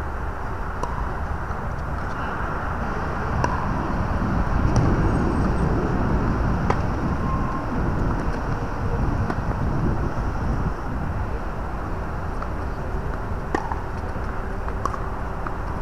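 Steady low outdoor rumble, with a handful of sharp pops from tennis balls struck by rackets during a doubles rally.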